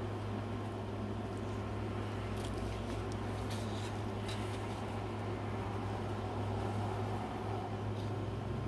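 A steady low mechanical hum, with a few faint light ticks between about two and a half and four and a half seconds in.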